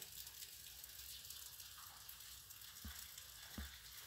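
Near silence: a steady faint hiss of room tone, with two soft low thumps about three seconds in.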